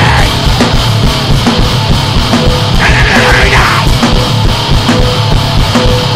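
Powerviolence recording by a two-piece band: loud, fast, heavily distorted playing over constant drumming.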